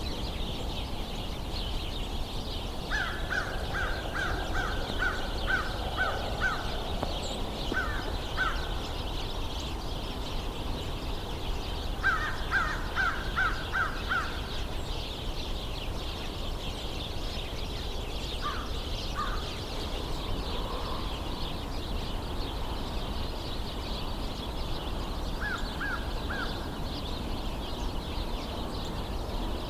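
American crows cawing in several runs of quick caws, the longest about eight caws, over the continuous chirping of a large flock of house sparrows.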